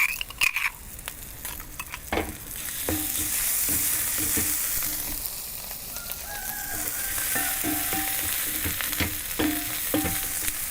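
Onions with crushed green chilli, ginger and garlic sizzling in hot coconut oil in a pan. The sizzle swells from about two seconds in, while a spatula stirs the mixture, knocking against the pan now and then with short scraping squeaks.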